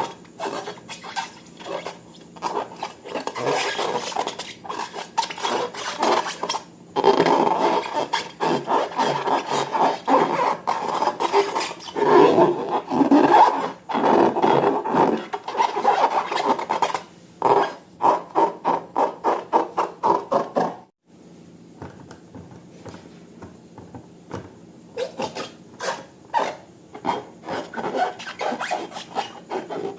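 Slime being squished and worked, giving continuous sticky crackling and popping. A run of regular pops gives way to a brief gap about two-thirds of the way through, after which the crackling is quieter before building again.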